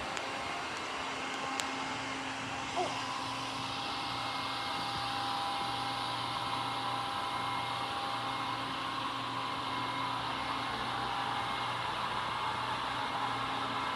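Roomba robot vacuum running: a steady motor and fan hum with a thin, even whine, and a couple of faint clicks in the first few seconds.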